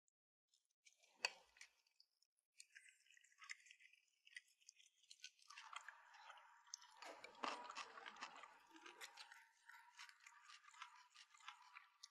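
Faint eating sounds: chopsticks clicking and scraping against porcelain bowls, with chewing. There is one sharper click about a second in, then a run of small clicks.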